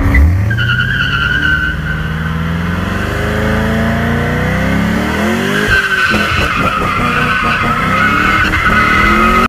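Camaro SS V8 with a loud exhaust revving hard while its tires spin and squeal on pavement. The engine's pitch climbs, dips briefly about halfway through, then climbs again under a continuous tire squeal.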